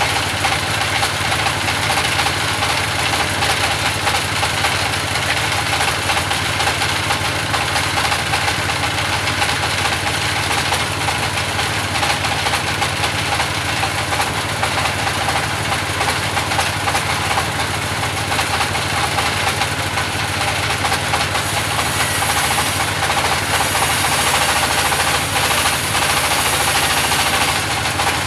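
Engine of a band sawmill ('selendang' saw) running steadily. A brighter hiss joins it for the last several seconds.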